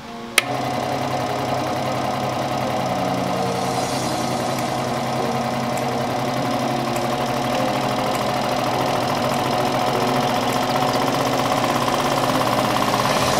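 Harbor Freight 16-inch variable-speed scroll saw switched on with a click about half a second in, then its motor and reciprocating blade running with a steady hum and rattle. The sound slowly grows louder as the speed knob is turned up.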